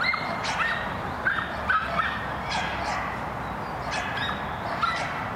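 A small dog barking repeatedly in short, high-pitched yaps, about ten in a few seconds.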